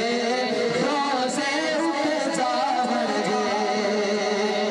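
Male voices singing a naat, a devotional hymn, into microphones over a sound system, in long wavering held notes.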